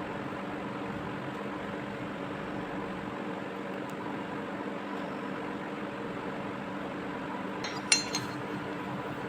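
Steady workshop hum with faint steady tones, broken about eight seconds in by a sharp double clink, like a small metal tool knocking against something hard.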